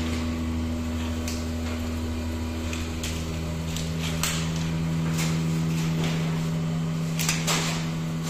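Plastic tray vacuum-forming (thermoforming) machine running: a steady mechanical hum, with a second lower tone joining about three seconds in, broken by several short hisses of compressed air from its pneumatic valves.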